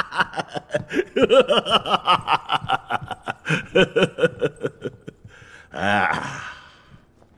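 A man laughing heartily, rapid 'ha-ha-ha' at about five a second, trailing off about five seconds in. A short vocal sound follows about a second later.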